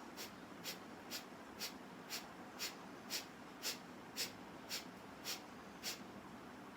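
A woman doing rapid-breathing pranayama: twelve short, forceful exhalations, about two a second, evenly paced.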